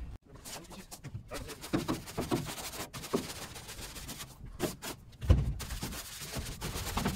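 Long-handled brush scrubbing the wet, soapy floor of a pickup truck bed in irregular strokes, with a heavy thump about five seconds in.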